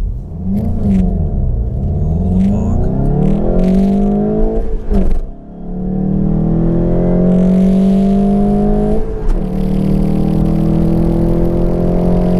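2019 VW GTI's turbocharged 2.0-litre four-cylinder revving up and down, then accelerating hard with the revs climbing steadily. The sound breaks briefly at gear changes about five and nine seconds in.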